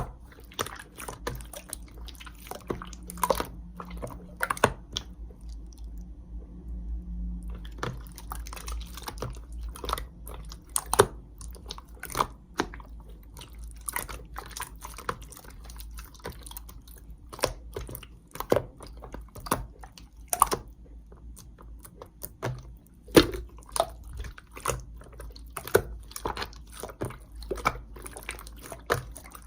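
Slime being squished and poked by hand, making many irregular sharp clicks and pops, over a low hum.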